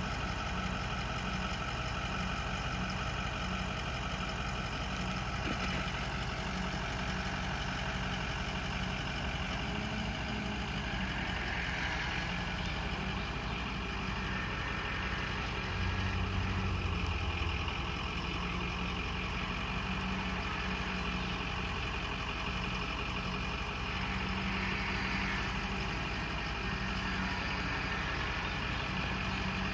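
Ford F450 Super Duty bucket truck's engine idling steadily while it powers the Terex aerial boom as the boom is raised and swung. It grows briefly louder and deeper about sixteen seconds in.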